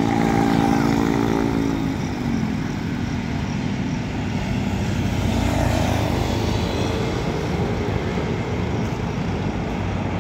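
Passing road traffic on a highway: a vehicle's engine hum drops in pitch as it goes by about two seconds in, followed by steady road rumble as a motorcycle passes close by.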